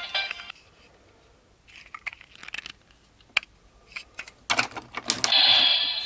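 Small plastic clicks and rattles as a Rashinban Kyutama is set into a DX Seiza Blaster toy gun, ending in a few sharp clicks, then the toy's electronic sound effect about five seconds in.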